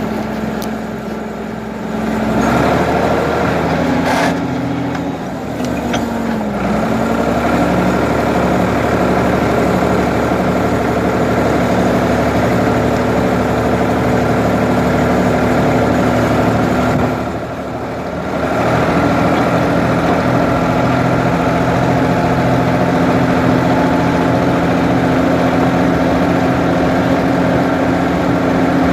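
Ford 550 backhoe's engine running loud and steady; its pitch steps up about two and a half seconds in, dips and recovers briefly around six seconds, and the sound drops away for about a second near the middle before picking up again.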